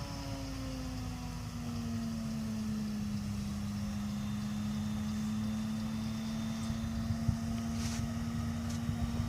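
Corn silage harvesting machinery running with a steady drone. Its pitch sinks a little over the first couple of seconds, then holds.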